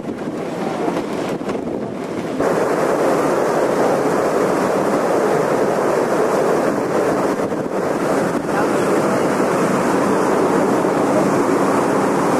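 Steady rushing of wind and sea on the open deck of a moving ocean liner, with wind buffeting the microphone. It gets louder about two and a half seconds in and then holds steady.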